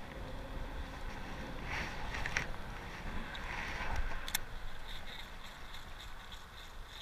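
Low rumble of wind on the microphone, with a few light splashes, a sharp click a little past four seconds in, then a fast, even ticking of a fishing reel being cranked in.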